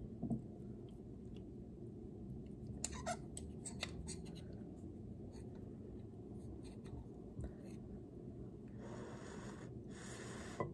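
Metal fork and spoon clicking and scraping against a ceramic bowl while twirling spaghetti, with a cluster of light clinks about three to four seconds in. Two short, soft breathy hisses near the end.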